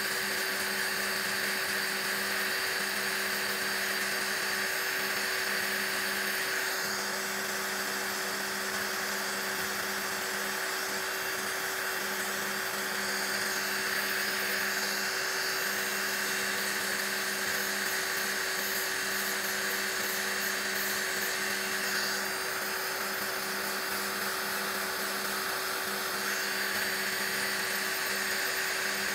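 Electric nail drill (e-file) running at a steady pitch, its bit grinding gel off a fingernail for a fill-in removal. The hum holds steady while the grinding hiss changes tone a few times.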